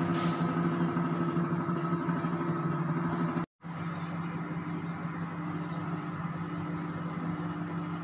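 Microwave oven running: a steady hum that breaks off for an instant about three and a half seconds in, then carries on.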